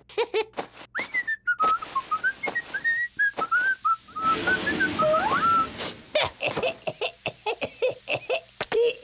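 Cartoon chick whistling a short, lilting tune, the notes hopping up and down. Near the end it gives way to a quick run of short clicks.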